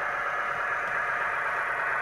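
Sound decoder in a Roco X 2800 diesel railcar model playing a steady diesel engine running sound through the model's small speaker, thin with little low end.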